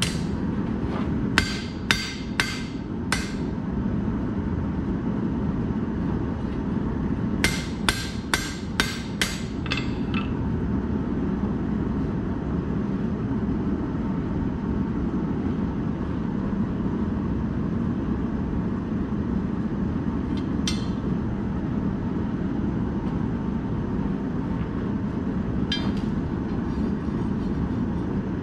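Hand hammer blows ringing on steel bar stock: five strikes about a second in, then a quicker run of about eight strikes around eight seconds in, and two single metallic clinks later on. A steady low rushing noise runs underneath throughout.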